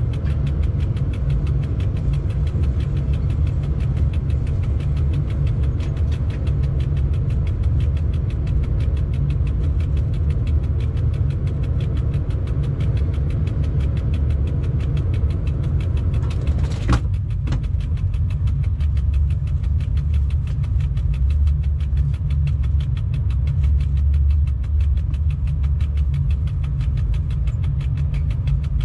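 Steady low rumble of a freight locomotive running slowly, heard from inside the cab, with a single sharp click a little past halfway through.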